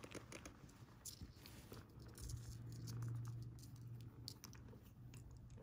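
Faint handling noises: fingers and monofilament fishing line ticking and rustling against a cloth work surface as a knot is tied, with a low hum swelling up in the middle.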